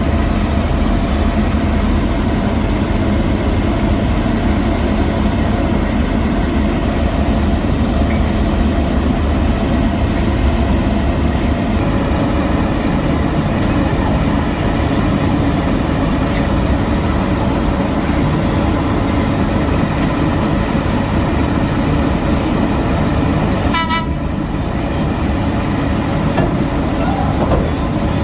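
Heavy construction machinery engines running steadily and loudly, a continuous low rumble with a steady whine above it.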